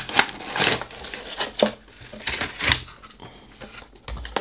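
Cardboard box being opened and a clear plastic tray slid out of it: rustling packaging with several sharp clicks and knocks of plastic and card being handled.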